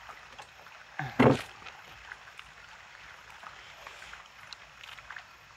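Eating at a table: faint clicks and taps of chopsticks on plastic takeout trays, with one brief loud knock about a second in.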